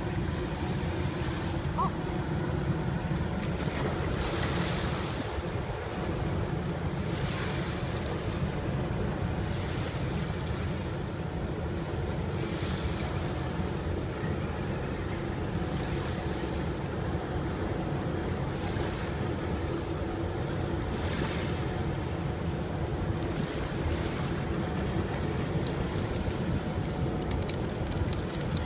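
Small waves lapping on a sandy riverbank with wind buffeting the microphone, over a steady low hum.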